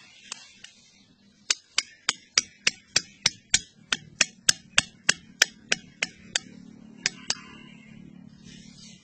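A small wooden peg being hammered into a dirt path with a wooden stick: a run of sharp knocks, about three a second for some five seconds, then two more.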